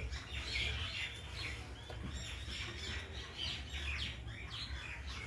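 Small birds chirping, many short high chirps in quick succession, over a steady low hum.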